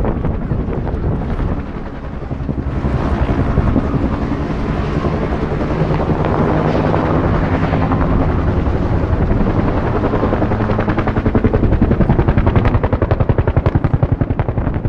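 Helicopter in flight, its rotor blades beating in a rapid, even chop over the engine. The beat grows louder and more pronounced over the last few seconds.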